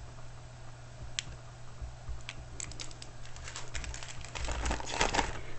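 Light rustling and scattered small clicks of a diamond painting canvas and its plastic film cover being handled. The clicks become busier about halfway through, with a few soft bumps near the end.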